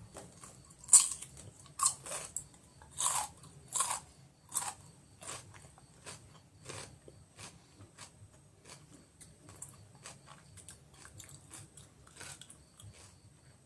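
Raw cucumber crunching as it is bitten and chewed close to the microphone: loud crisp crunches about once a second for the first five seconds, then quieter, steadier chewing.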